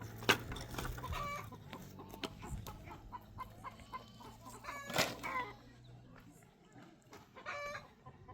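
Chickens clucking in short calls, three times, among scattered knocks and scrapes.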